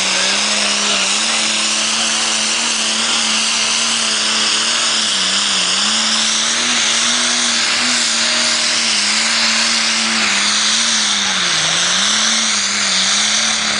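Turbocharged engine of a modified International Harvester pulling tractor running flat out under the load of a pull, holding one steady pitch that dips briefly a few times, with a high whine above it.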